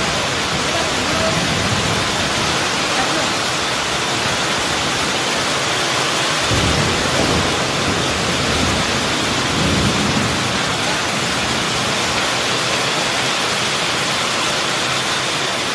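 Heavy rain pouring down in a steady loud hiss, with low rumbles swelling up about six and a half and ten seconds in.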